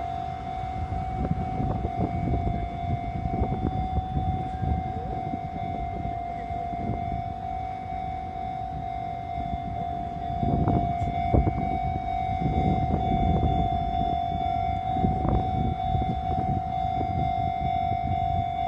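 Japanese level-crossing alarm ringing with a steady high tone over a passing Sotetsu train's low rumble and wheel clatter. The train noise grows louder about halfway through.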